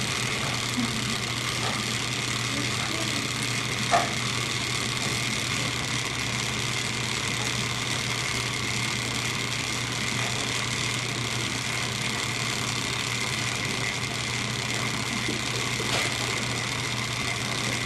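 Steady hum and hiss of background noise, with faint distant voices and a single sharp click about four seconds in.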